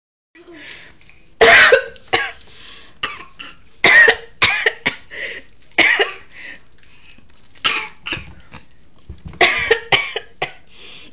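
Repeated fake coughing and gagging, a woman imitating morning sickness and a toddler copying her: about a dozen short, harsh coughs in clusters, loudest near the start.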